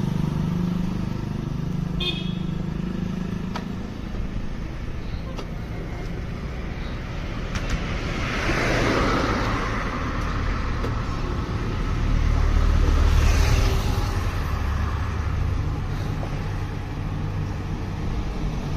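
Road traffic: vehicle engines running with a low steady hum, vehicles passing with a rise in noise around the middle, and a short high horn toot about two seconds in.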